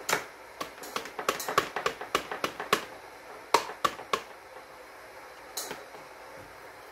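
Quick irregular taps and knocks on a stainless steel spice grinder cup as it is shaken and tapped to knock ground curry powder out. The run of taps lasts about four seconds, with one more tap near the end.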